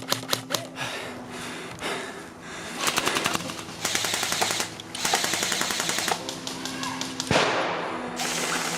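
Airsoft guns firing in rapid automatic bursts, sharp evenly spaced pops, in several stretches, over background music.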